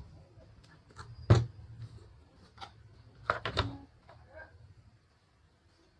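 A few sharp wooden knocks and lighter clicks as a carved wooden panel and tools are handled on a workbench: one loud knock about a second in, then two close together a little past halfway. A faint low hum underneath stops about five seconds in.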